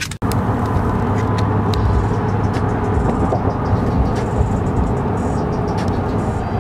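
Steady road and engine noise inside a moving car's cabin, cutting in abruptly a moment in.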